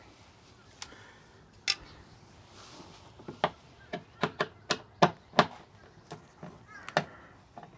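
Sharp, irregular clicks and knocks, about fifteen of them, bunched most closely in the middle: door trim parts and hand tools being handled while an AE86 Corolla's door panel is taken apart.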